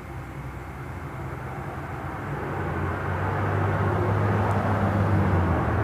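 An engine hum with a noisy rush above it, growing louder over the first three seconds and then holding steady, like a vehicle coming near.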